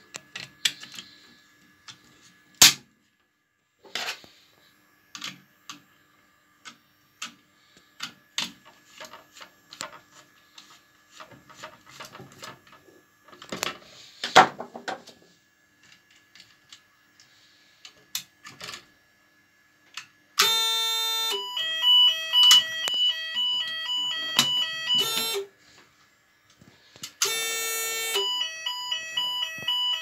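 Clicks and knocks from handling a Chubb break-glass manual call point. About twenty seconds in, the Chubb Zonemaster 204 fire alarm system goes into alarm: a loud electronic sounder with rapidly alternating stepped tones. It stops for a couple of seconds and starts again near the end.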